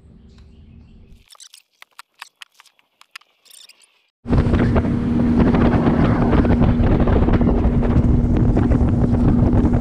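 Bass boat's outboard motor running at speed, a steady engine drone under heavy wind buffeting the microphone, cutting in suddenly about four seconds in. Before it there are a few faint clicks.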